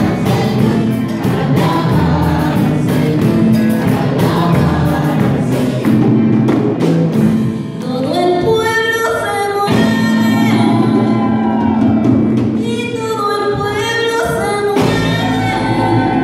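Live gospel worship song: women singing into microphones over amplified accompaniment, with a steady beat of sharp hits through the first several seconds.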